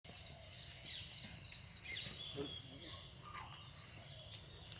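Insects trilling steadily in a high, pulsing chorus, with a few short faint bird-like calls and low background rumble.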